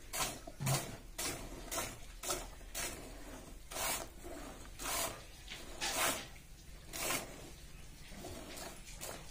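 Jets of milk squirting from a cow's teats into a plastic bucket partly full of milk during hand milking, a short hiss with each pull at about one to two squirts a second.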